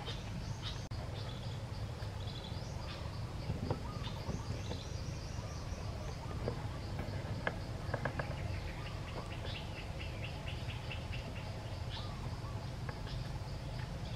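Outdoor ambience: many short high chirps and ticks over a steady low hum, with a few soft clicks about halfway through.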